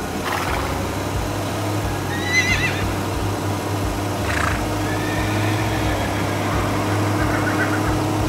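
Cartoon sound effects: a horse whinnies with a wavering call about two seconds in and again briefly a couple of seconds later, over a steady low tractor engine hum.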